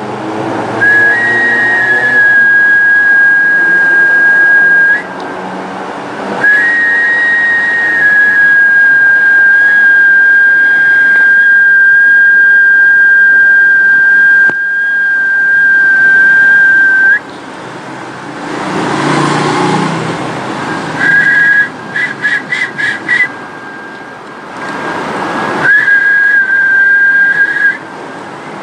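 A high, steady whistled note held for long stretches, once for about ten seconds. It breaks off twice into a rush of breathy noise, and there is a quick run of short whistle pulses about two-thirds of the way through.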